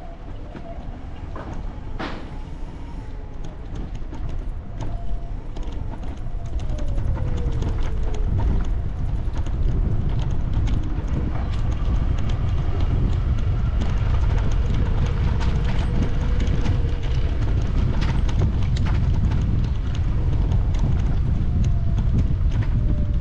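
Wind rumbling on the microphone, growing louder about eight seconds in, with irregular clicks and rattles from the camera moving over brick paving.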